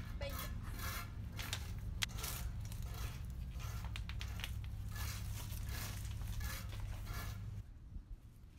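Irregular crackling and scraping of a thin PET plastic bottle used as a plant pot, handled and pulled off a small tree's root ball, with soil rustling.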